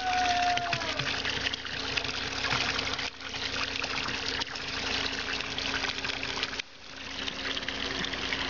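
Water pouring from a pipe spout into a stone trough, splashing steadily, with two brief dips in loudness.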